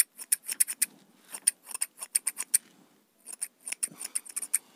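Small blue-handled scissors snipping moustache hair close to the face: a quick run of sharp snips, a short pause about three seconds in, then more snipping.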